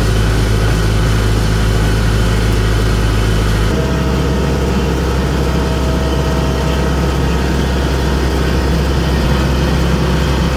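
Corn harvester engine running steadily with a low hum; the engine note changes abruptly about four seconds in.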